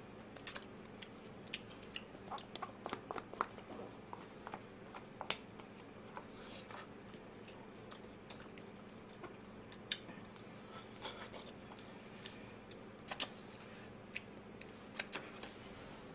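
Eating sounds: scattered short clicks and taps of chopsticks against a small plastic bowl and food boxes, with faint chewing of fried chicken. The sharpest tap comes about half a second in.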